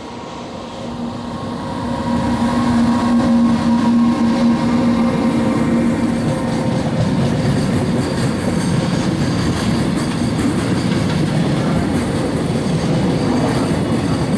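EF210 electric freight locomotive passing slowly with a steady hum that fades about six seconds in. A long string of container wagons follows, their wheels rolling on the rails.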